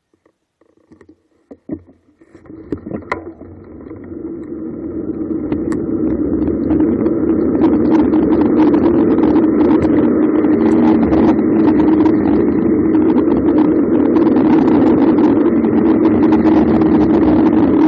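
Bicycle rolling downhill on asphalt: wind rushing over the microphone and tyre noise, growing steadily over several seconds as the bike gathers speed, then holding loud and even. A few light clicks sound just before the rush begins.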